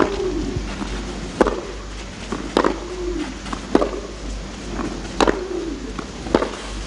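Tennis rally on a clay court: six racket strikes on the ball, one about every second and a quarter. A short falling vocal grunt follows some of the shots.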